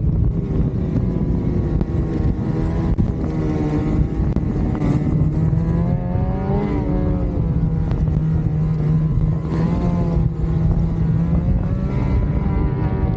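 Lynx Shredder RE 850 Turbo snowmobile's turbocharged two-stroke twin, fitted with a Jaws trail muffler, running steadily under way on the trail. The engine pitch swells up and back down briefly twice in the middle as the throttle changes.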